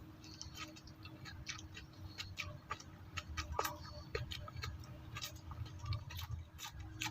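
Close-up chewing of raw bitter gourd: irregular crisp crunches and wet mouth clicks, several a second.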